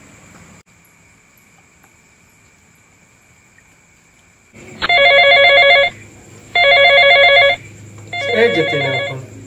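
Mobile phone ringing for an incoming call: a melodic ringtone in three loud bursts of about a second each, starting about halfway in.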